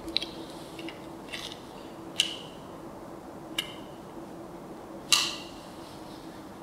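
Five or six sharp clicks at irregular intervals, each with a brief high ring; the loudest comes about five seconds in. A faint steady hum runs underneath. The clicks are unexplained.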